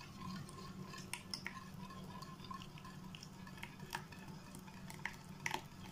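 Spoon or whisk stirring in a bowl, with faint, irregular clinks and ticks against the bowl, as the warm semolina-milk mix is blended into beaten eggs. A low steady hum runs underneath.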